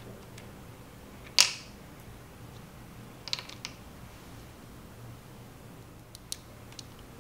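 Small clinks and taps of miniature glass and ceramic kitchen pieces being picked up and set down on a countertop: one sharp clink with a short ring about a second and a half in, a quick cluster of small taps a little past halfway, and a few lighter ticks near the end, over a faint low hum.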